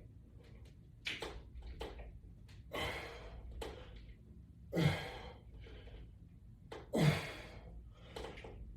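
A man breathing hard with effort through a set of resistance-band exercises: a string of short, forceful exhales, the two strongest about five and seven seconds in.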